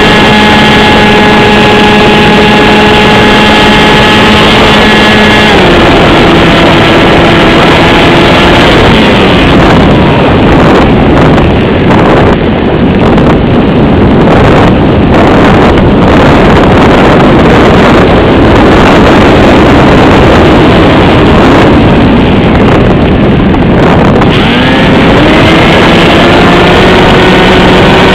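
Electric motor and propeller of an AXN radio-controlled foam plane whining at a steady pitch, with heavy wind rush on the onboard camera's microphone. About five seconds in the pitch steps down, and the motor fades out within a few more seconds, leaving only the rush of air as the plane glides. Near the end the motor winds back up with a rising whine.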